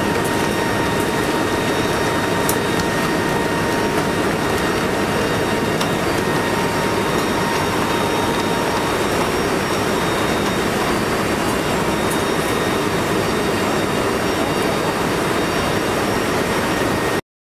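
Loud, steady noise of rushing wind and the four turboprop engines of a Lockheed C-130 Hercules in flight, heard from its open rear ramp, with a faint steady whine over it. It cuts off suddenly near the end.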